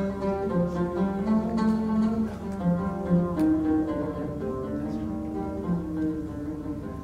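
Solo oud playing a melodic line of plucked notes, with a strong plucked attack right at the start.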